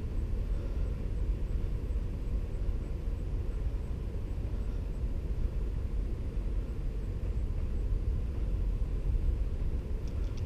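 Steady low rumbling noise with no clear tone, like wind buffeting the microphone outdoors.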